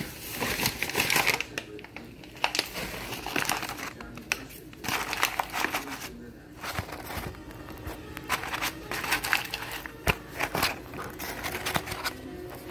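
Spatula scraping cake batter out of mixing bowls into a bundt pan: irregular scraping and rustling strokes with a few sharp clicks.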